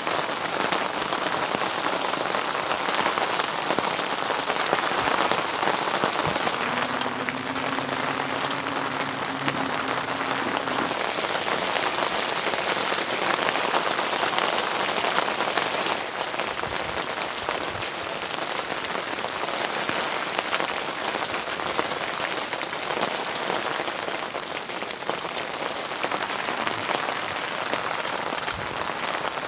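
Heavy rain falling on a camping shelter, a steady, even hiss of drops. A faint low hum sits under it for a few seconds about seven seconds in.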